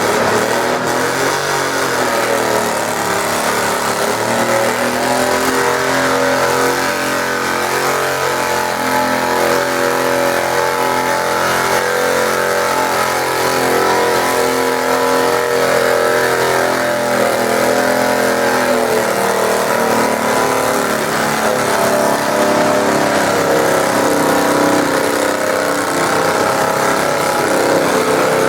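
Garden tractor engine running hard and steady under load as it drags a weight sled, its pitch wavering slightly over a long pull.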